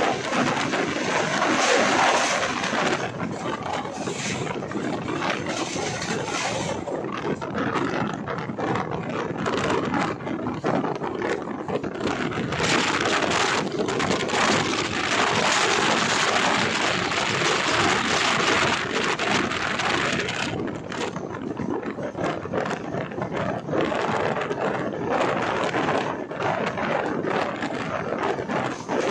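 Passenger train running at speed, heard from on board an LHB coach: a steady noisy rush of wheels on rails with constant clattering, louder for several seconds in the middle.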